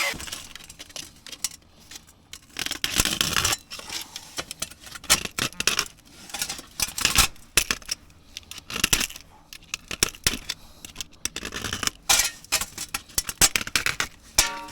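Sheet-metal stove pipe pieces being handled: irregular clinking, tapping and scraping of thin metal, with a short metallic ring near the end.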